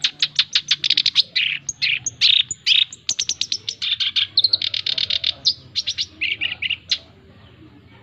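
Male black-browed reed warbler singing a fast, varied song of quick repeated high notes and short rattling phrases, stopping about seven seconds in.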